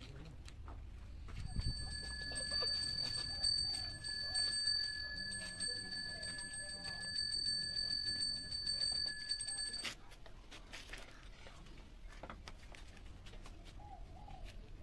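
A ritual handbell (genta) rung rapidly and continuously for about eight seconds, starting about a second and a half in and stopped suddenly. Faint murmuring voices lie beneath it.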